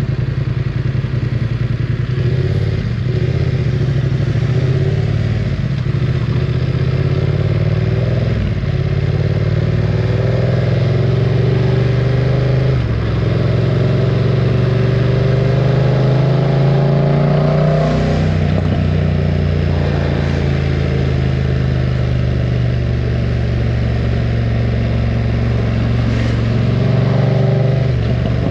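BMW F900 R parallel-twin motorcycle engine running loud through an aftermarket exhaust under way. The engine note climbs twice, dropping back each time, then holds steady.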